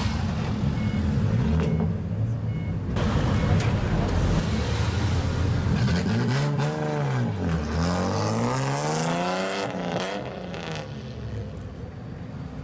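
Engines of lowered cars with straight-piped exhausts running as they pull out. Partway through, one engine is blipped and then revved up in a long climbing rev that cuts off suddenly. The sound then eases off.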